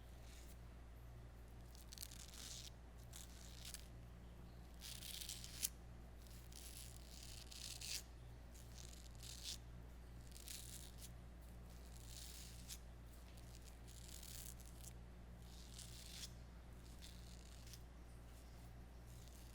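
Manual razor scraping through stubble in short, irregular strokes, about one every half second to a second, over a faint steady low hum.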